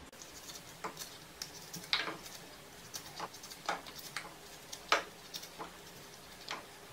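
Hog plums being sliced by hand with a knife, the pieces dropping into a steel mixer jar: scattered soft clicks and taps at an uneven pace, the sharpest about two and five seconds in.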